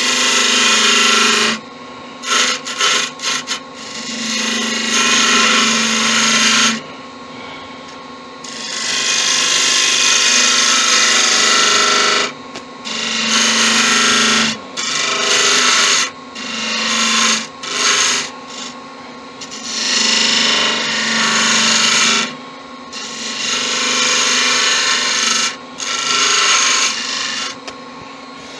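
Detail gouge cutting spinning spalted beech on a wood lathe, making a hissing shaving sound in about a dozen passes of one to a few seconds each, with the lathe's steady hum between cuts.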